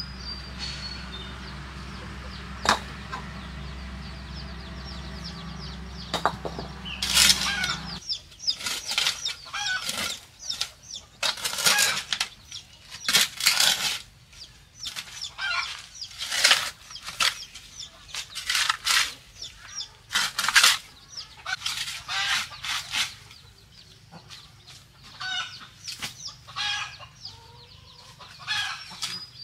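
A shovel blade scraping and scooping wet soil off a concrete floor in repeated strokes, roughly one a second, starting about eight seconds in. Before that, a steady low hum with a few sharp knocks.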